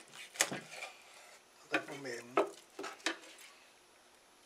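Kitchen knife cutting a flounder on a wooden cutting board: a handful of sharp knocks and scrapes as the blade works through the fish and meets the board.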